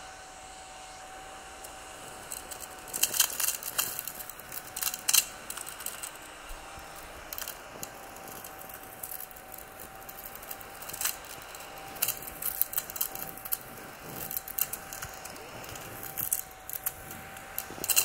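Emoji Crumby battery-powered 12,000 RPM mini vacuum running with a steady whine, moved over fabric upholstery. Bursts of crackling clicks come again and again as cracker crumbs are picked up.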